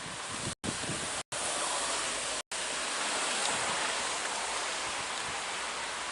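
Steady hiss of heavy thunderstorm rain. The sound drops out for an instant three times in the first two and a half seconds.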